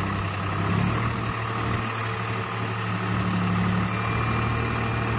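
Swaraj 744 tractor's three-cylinder diesel engine running steadily while its hydraulics tip the loaded trolley. A thin high whine joins about four seconds in.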